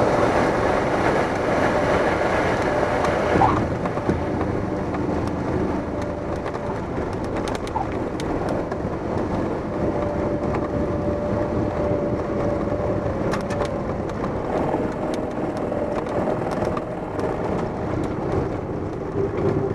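Cessna 172's piston engine and propeller running, heard inside the cockpit along with rushing air and rolling noise as the plane travels down the runway after landing. The rushing noise drops noticeably about three and a half seconds in, just after a brief bump.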